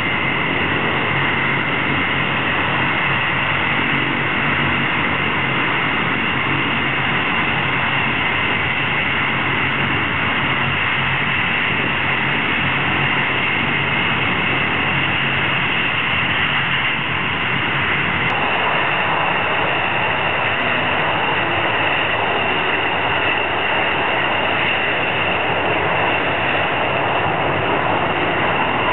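BAE Hawk jet trainers taxiing, their turbofan engines giving a steady, high-pitched jet whine. About two-thirds of the way through the sound changes abruptly to Dassault/Dornier Alpha Jets taxiing with the same kind of steady whine.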